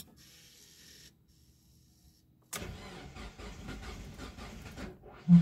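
Mazda MX-5 1.8 VVT's four-cylinder engine being cranked by its starter motor after a faint fuel-pump priming hiss, heard from inside the cabin. Cranking starts suddenly a couple of seconds in and goes on without the engine catching: a hard cold start at −1 °C on Speeduino engine management. A single loud low thump sounds near the end.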